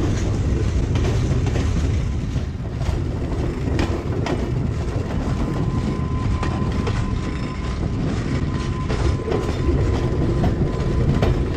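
Passenger train running, heard through an open carriage window: a steady rumble of the wheels with repeated clicks as they pass over the rail joints. A thin steady whine comes in about halfway.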